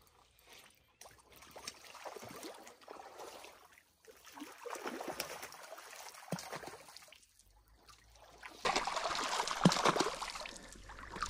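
A hooked trout thrashing and splashing at the surface in shallow water as it is brought in to shore. The splashing is loudest over the last few seconds.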